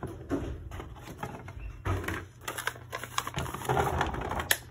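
Irregular clicking and rattling from hands handling a picture frame and the loose plastic pencil-top erasers inside it, busiest in the second half.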